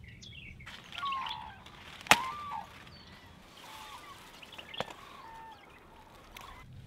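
Birds chirping and calling in short gliding notes, with a sharp click about two seconds in and a smaller one near five seconds.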